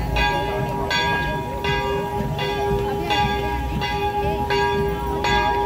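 Church bell ringing in steady, evenly spaced strokes, about one every three-quarters of a second, each strike's hum carrying on into the next, with crowd noise beneath.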